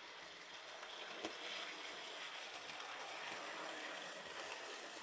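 Bachmann model of a Fairburn tank locomotive running along the track towards and past the listener: a steady whirring rush that grows louder as it nears and drops away near the end, with one short tick about a second in.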